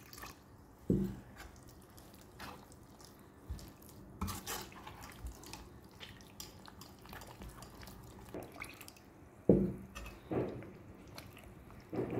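Water trickling into semolina and gram-flour batter, then a steel spoon stirring it in a steel pan: soft wet sloshing with a few dull knocks of the spoon against the pan.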